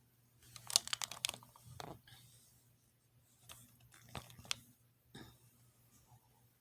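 Paper being handled: a few bursts of rustling and crinkling with small clicks, in two spells separated by a pause.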